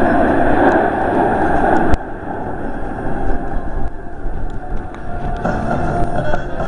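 Jet noise from the Snowbirds' formation of CT-114 Tutor jets flying past, a loud steady rush that drops off suddenly about two seconds in, leaving a fainter rumble.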